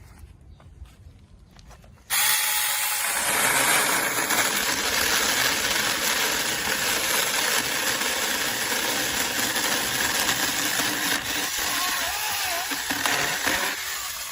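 Saker 6-inch cordless mini chainsaw, running on a 20-volt battery, starting abruptly about two seconds in. It runs loud and steady as the chain cuts through wood, then dies away near the end.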